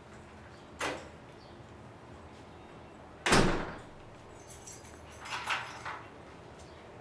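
An apartment front door: a short click about a second in, then the door shuts with a loud thud about three seconds in, followed by a spell of lighter rattling and clicks.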